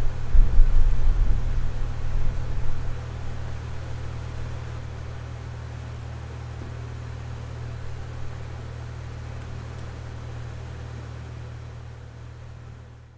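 Jeep Wrangler engine running at low speed as it crawls over rocks, a steady low hum. Heavy uneven low rumbling in the first three seconds, and the sound fades out at the end.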